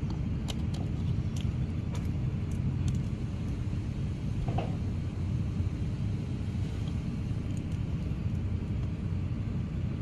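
A steady low rumble, with a few light clicks and knocks of plastic watch-winder parts being handled.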